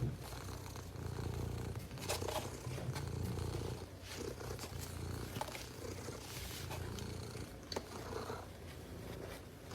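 Domestic cat purring: a low, steady rumble that swells and eases gently, with a few light clicks over it.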